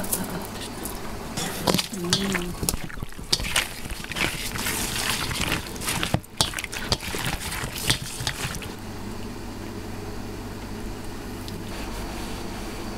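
Hands mixing raw beef liver and sheep's tail-fat pieces in a stainless steel bowl, making wet squelching and slapping sounds with irregular clicks against the metal. This stops about eight or nine seconds in, and it is quieter after that.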